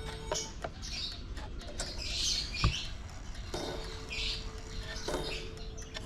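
Small birds chirping in short bursts every second or so, with a faint steady hum in two stretches and a single sharp click about two and a half seconds in.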